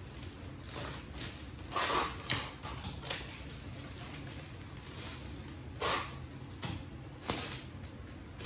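Sheets of black florist's wrapping paper rustling and crinkling as they are handled and folded around a large rose bouquet, in four short bursts, over a low steady hum.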